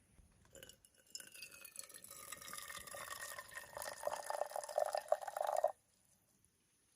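Liquid poured in a steady stream into a container, with a ringing pitch that shifts as it fills, getting louder and then stopping abruptly.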